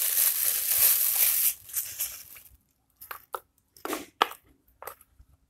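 Close handling noise from fitting plastic water level indicators into an inverter battery's vent holes: loud crunching, rustling rubs for about two seconds, then several short, sharp plastic clicks and taps.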